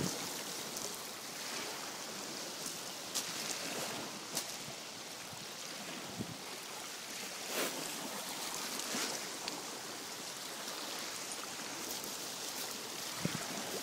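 Steady wash of small waves on a pebble beach, with a few faint crunches of pebbles underfoot.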